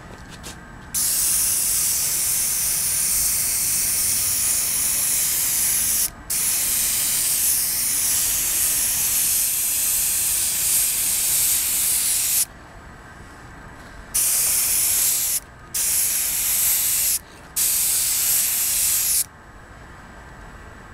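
Airbrush spraying one sealing coat of clear over a freshly painted wheel stripe: a steady hiss in five passes, two long ones of five to six seconds, then three shorter ones with brief pauses between.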